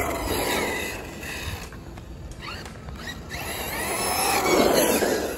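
Hobao Hyper SSTE 1/8-scale electric RC truck driving on asphalt: its electric motor whines up and down in pitch with the throttle, over tyre noise, getting louder toward the end.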